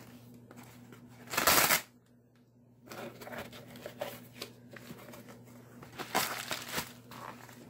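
Plastic bubble wrap rustling and crinkling as hands turn and unwrap a wrapped item, with one loud burst of crinkling about a second and a half in, a brief lull, then scattered shorter crinkles.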